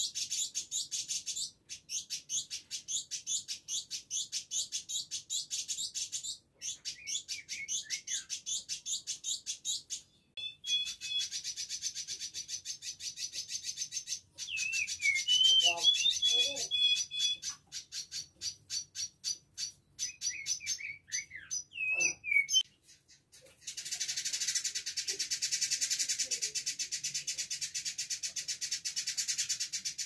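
Male village indigobird singing a fast, dense chatter of rapidly repeated notes, broken by a few short pauses, with clear whistled slurs mixed in around the middle.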